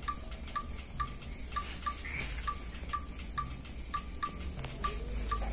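A steady high insect-like trill, with light ticks repeating about three times a second and a low note that comes and goes.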